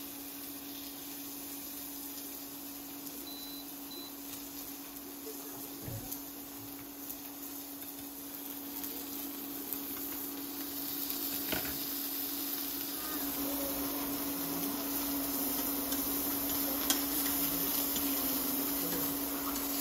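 Beef slices sizzling in a frying pan on an induction cooktop, over the cooktop's steady hum. The sizzle grows louder from about halfway through, with a few sharp clicks of metal tongs on the pan.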